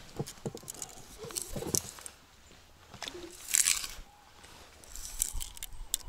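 Fishing tackle being handled while pike float rigs are set up: scattered clicks and rustles, with a short crunching scrape about three and a half seconds in.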